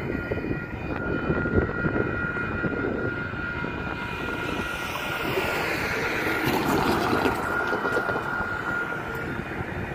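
Railroad grade-crossing warning bell ringing steadily as the flashers and gates activate, stopping just before the end once the gate arm is down. A car drives past over the crossing about midway, and a low wind rumble sits underneath.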